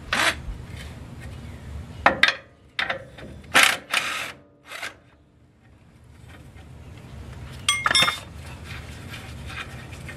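Scattered metallic clicks and clinks of hand tools and fasteners being worked on a truck's front suspension ball joint and control arm, about half a dozen sharp knocks in the first five seconds, then a quieter stretch and one clink that rings briefly near 8 seconds.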